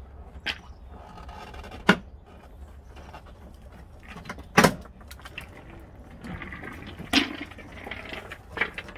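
Plastic retaining clips of a Honda tailgate's interior trim panel snapping loose as the panel is pried off with a plastic trim tool: five sharp snaps a second or two apart, with rustling of the panel between them.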